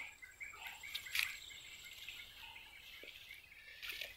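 Faint chorus of small chirping wildlife: short, high chirps repeating steadily, with a sharp click about a second in.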